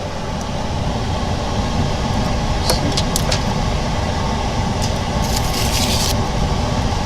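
OCA laminating machine for phone screens switched on, its motor running steadily with a low hum. A few light clicks and a short hiss about five seconds in.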